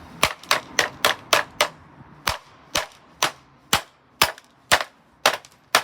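A Blaupunkt fan heater being struck over and over: a run of about fifteen sharp blows, quick at first (three or four a second), then slowing to about two a second.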